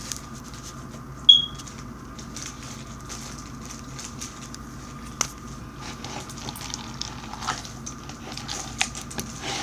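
Clear bead slime being squished and poked by hand, the beads giving off scattered small clicks and crackles. A short high-pitched beep sounds about a second in.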